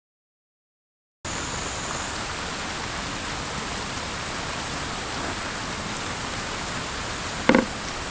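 Steady rain falling, an even hiss that starts abruptly about a second in after dead silence. A short knock sounds near the end.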